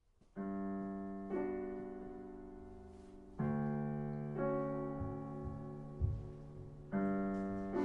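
Solo piano playing slow, sustained chords, each struck and left to ring and fade before the next.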